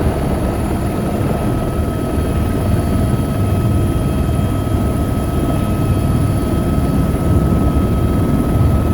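Helicopter running steadily in flight: a dense low rotor and engine rumble with a thin steady whine above it.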